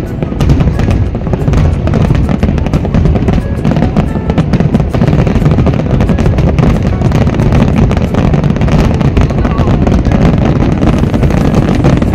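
Large fireworks display in a dense, continuous barrage: deep booms overlapped by rapid crackling, with music playing alongside.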